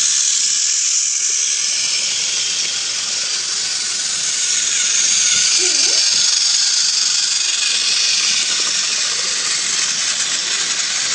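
Small electric motor of a battery-powered toy train whirring steadily as it runs, a loud, high-pitched buzz.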